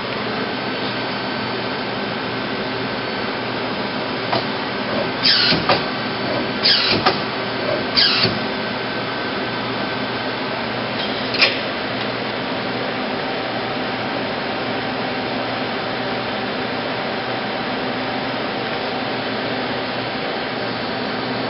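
Mazak Multiplex 6200Y CNC lathe running with a steady machine hum, several faint steady tones in it. A handful of short whines come in quick succession about five to eight seconds in, and one more near eleven seconds.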